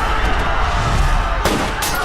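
Dramatic film-trailer music over a deep rumble, with two sharp hits close together about a second and a half in.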